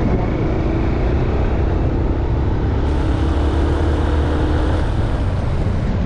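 Motorcycle engine running steadily at cruising speed, with a low steady drone and wind rush on the microphone.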